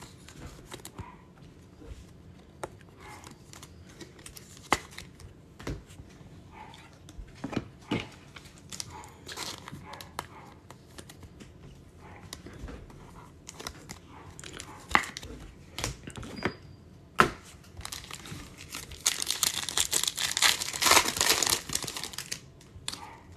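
Trading cards being handled, with scattered light clicks as they are sorted. About 19 seconds in comes a few seconds of crinkling and tearing, as a foil card pack wrapper is ripped open.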